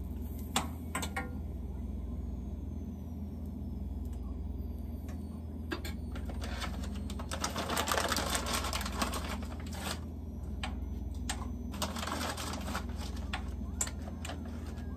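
Lamb chops frying in oil and butter in a pan, crackling and spitting in dense bursts, loudest around the middle and again near the end. A couple of sharp clicks from a spoon against the pan come near the start, over a steady low hum.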